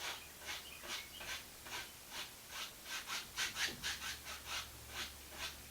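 Paintbrush stroking across a painting canvas, a run of short scratchy swishes, about two or three a second.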